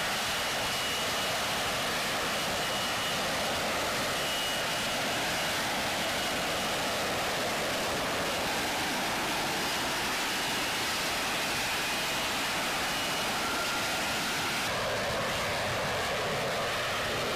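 F-35B's jet engine and shaft-driven lift fan running in a vertical hover: a loud, steady rush of jet noise with a thin high whine on top. About three-quarters through, the tone changes as the jet turns away.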